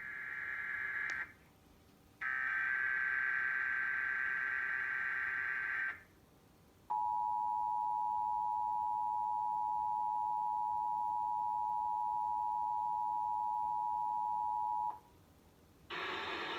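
Emergency Alert System test from a TFT encoder, heard over a TV relay. First come two SAME header data bursts, warbling digital screeches with a short gap after each. Then, about seven seconds in, the steady two-tone attention signal (853 and 960 Hz) sounds for about eight seconds. After a brief pause and a burst of noise, a second attention tone starts right at the end, which is unusual for this station and a sign it relayed a different source than usual.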